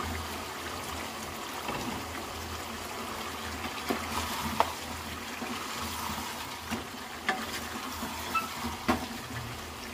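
Chicken, tomato and potato masala cooking in a pot: a steady sizzling and bubbling, with a few sharp clicks now and then.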